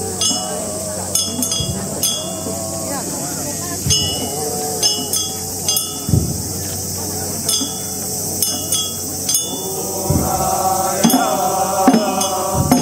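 Voices chanting or singing in long wavering tones, swelling about ten seconds in, with sharp metallic clinks that ring briefly, struck at irregular intervals about a dozen times.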